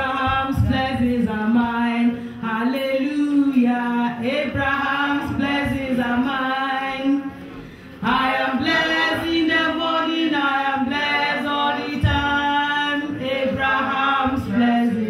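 A woman singing into a microphone: a slow melody with long held notes, breaking off briefly about seven seconds in.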